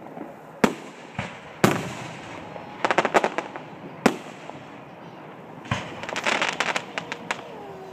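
Aerial fireworks shells going off: sharp single bangs in the first two seconds and again about four seconds in, with spells of rapid crackling around three seconds in and again from about six seconds.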